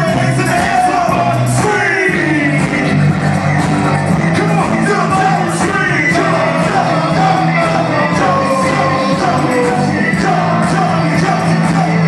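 Live hip-hop concert music over a PA: a steady bass line with a sung melody over it, loud and continuous.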